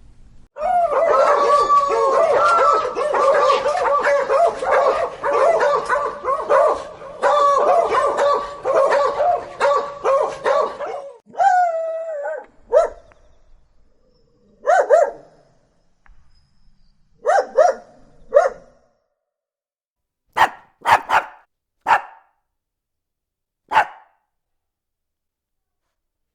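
Dogs barking angrily: about ten seconds of dense, rapid barking, then barks with gaps between them, then a few short, sharp single barks.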